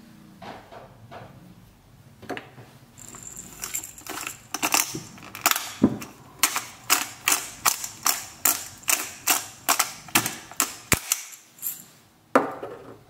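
Hand-twisted black pepper mill grinding over a bowl: a steady run of sharp clicks, about two a second, for several seconds, followed by a single louder knock near the end.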